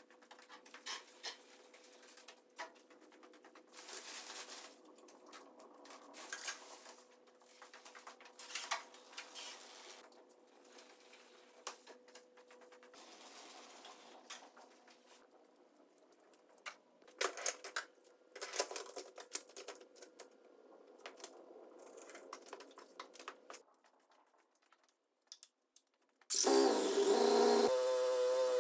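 Faint scattered clicks and light metallic clatter, like small hard objects being handled, with quiet gaps between them. Near the end, a much louder sustained sound of several steady tones starts abruptly.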